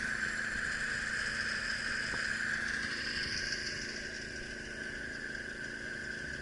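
An engine running steadily at a constant speed, a high whine over a low hum.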